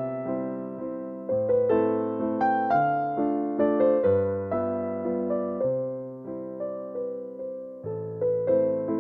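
Background music: a slow piano piece of single notes and chords, each struck and ringing out as it fades.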